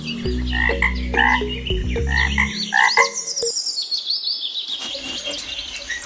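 Short animal calls repeated about six times over a steady low tone that stops about two and a half seconds in; high chirping calls with falling pitch follow.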